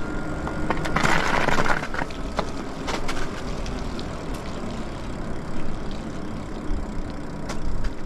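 E-bike riding over a wet, slushy and icy road: tyres hissing and crackling through the slush, with wind rumbling on the microphone. The hiss swells louder about a second in, and a few sharp crackles follow.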